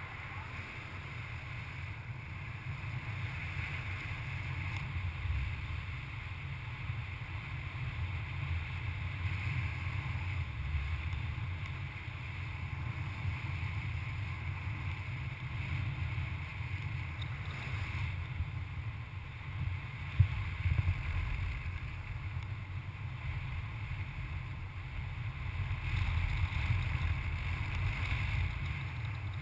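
Wind from the airflow of paraglider flight rushing over the camera microphone: a steady low rumble with a thin hiss above it. It swells a little near the end, with one brief knock about two-thirds of the way in.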